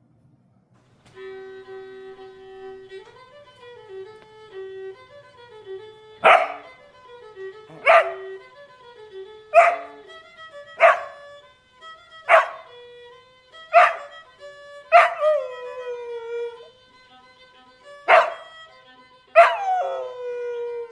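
Fiddle theme music playing. About six seconds in, an Australian cattle dog (blue heeler) sets off barking sharply at the fiddle, about nine loud barks roughly one and a half seconds apart, two of them trailing off into a falling yelp.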